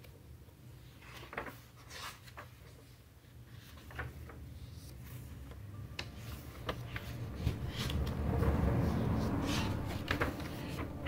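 Paper notebook being handled, with pages turned: scattered soft clicks and paper rustles, then a louder stretch of rustling about eight seconds in.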